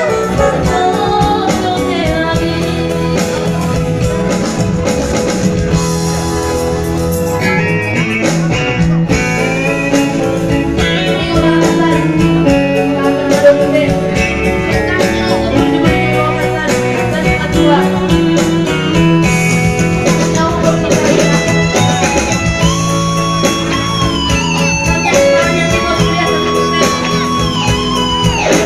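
Live band music led by an electronic keyboard playing a melody with gliding notes, over a drum beat, with a girl singing.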